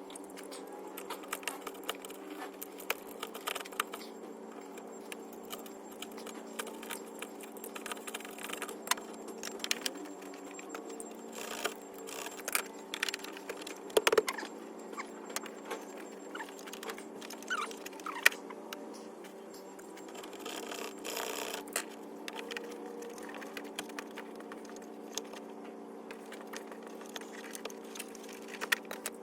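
Irregular light clicks, scrapes and rattles of hand tools cutting and clearing a hole in a wall for an electrical outlet.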